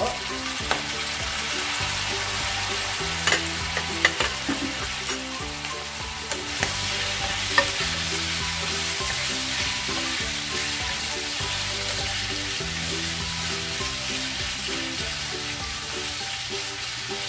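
Pork belly pieces sizzling in hot fat in a non-stick pan, soy sauce just added, while a spoon and wooden spatula stir them with a few sharp scrapes and taps against the pan. Soft background music plays low underneath.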